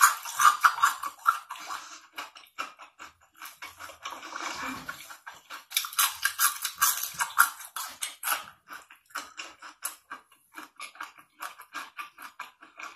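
Close-miked ASMR crunching and chewing of crisp fried food: many sharp crackling crunches in quick succession, heaviest in the first second or so and again from about six to eight and a half seconds in.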